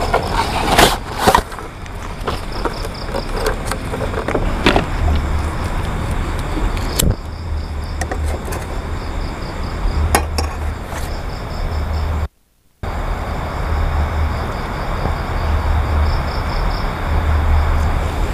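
Camping gear being handled, with several sharp knocks and clatters in the first half, over a steady low rumble.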